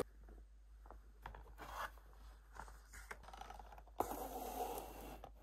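Faint scattered rustles and small clicks of a cardboard calendar box being handled, then a short scraping rustle about four seconds in as the box is moved.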